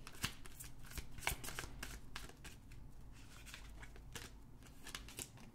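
A deck of tarot cards being shuffled by hand, passed from one hand to the other in a run of faint, quick card flicks and taps. They are densest in the first half and thin out after that.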